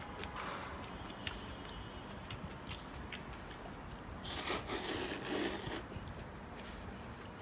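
A man slurping up a mouthful of hot-and-sour sweet potato noodles: one loud wet slurp of about two seconds, starting about four seconds in, after a few light clicks.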